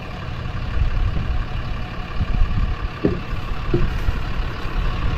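Truck engine idling with a steady low rumble; it is most likely the fish-stocking truck.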